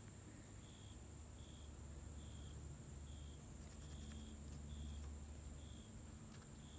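Cricket chirping faintly in short, evenly spaced chirps, a little more than one a second, over a steady high whine and a low rumble.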